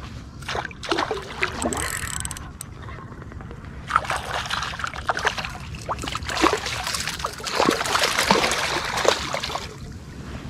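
A hooked fish thrashing and splashing at the surface beside a kayak, in a short spell about half a second in and again from about four seconds in until just before the end.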